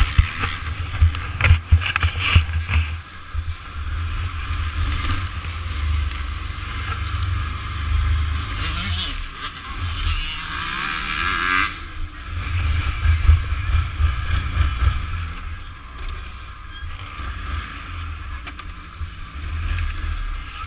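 Muffled engine noise under a heavy, fluctuating low rumble on a jostled camera microphone, with a few sharp knocks in the first few seconds.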